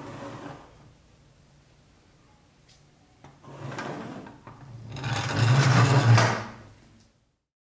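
Restored 1965 Nylint Bronco pressed-steel toy rolling and scraping across a workbench top, its wheels rumbling, in three passes; the last, as it is pushed away, is the longest and loudest. The sound cuts off abruptly about seven seconds in.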